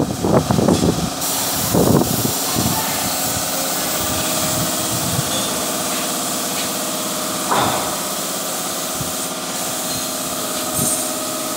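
Compressed-air paint spray gun hissing steadily as it sprays, over the steady hum of the air compressor feeding it. A single knock sounds about two-thirds of the way through.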